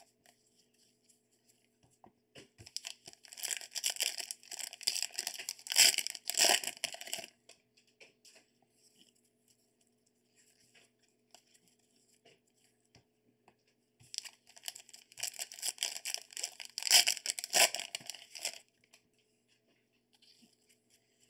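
Wrapping of a sealed trading-card box being torn open and crinkled: two bursts of crackly tearing, each about four seconds long, a couple of seconds in and again past the middle.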